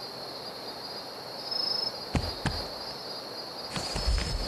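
Outdoor night ambience of crickets chirping in a steady high trill. Two dull thumps come about two seconds in, and a few more with some rustling near the end.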